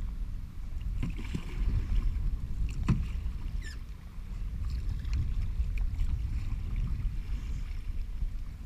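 Kayak paddle blades dipping and splashing in the water, a stroke every couple of seconds, over a constant low rumble of water and wind at the kayak.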